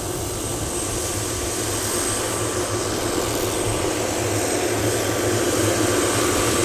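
Helicopter turbine engine and rotor running steadily: a low rotor beat under a thin high turbine whine and broad hiss, growing gradually louder.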